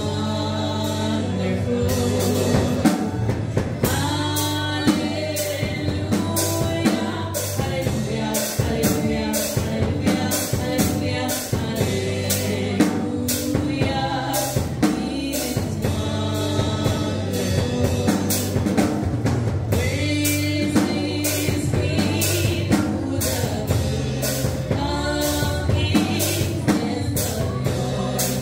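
Gospel praise singing: a woman's lead vocal, amplified through a handheld microphone, over live band backing with drums and a steady bass.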